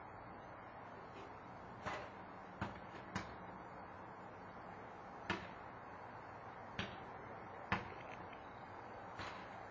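About seven sharp knocks at irregular intervals, the loudest near the end, over a faint steady background hum.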